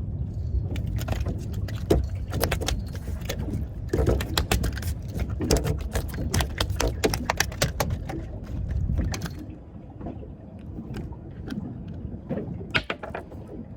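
Fishing reel clicking in quick, irregular runs while a hooked flathead is brought in; the clicks thin out about two-thirds of the way through. Steady low wind and water rumble runs underneath.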